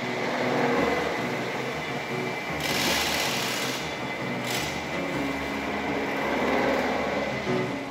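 Metal-spinning lathe running while a long hand-held spinning tool presses a copper disc into shape: a steady machine hum, with a hiss of the tool rubbing on the turning copper that grows louder for about a second near the middle and comes again briefly a moment later.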